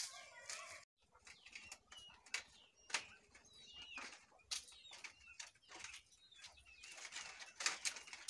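Small birds chirping: short, scattered high calls, with a few light clicks among them.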